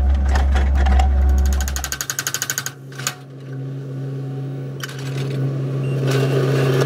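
Excavator-mounted hydraulic rock hammer pounding on rock, a rapid even rattle of blows over the excavator's engine. About two seconds in the sound changes, and a steady engine hum carries on for the rest.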